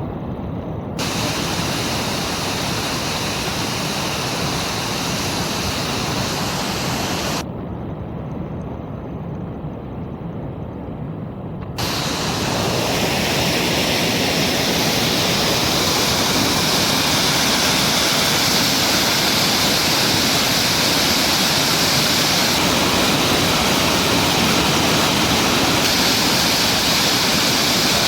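Rushing water of a mountain creek, a steady loud rush with no pitch. It drops suddenly to a thinner, softer rush about seven seconds in, then comes back fuller and louder about twelve seconds in.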